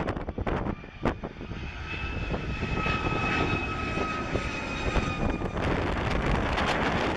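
Boeing 757-200's Rolls-Royce RB211 jet engines on final approach, passing low overhead: a rumble that grows louder, with a steady high two-tone whine in the middle, over gusts of wind on the microphone.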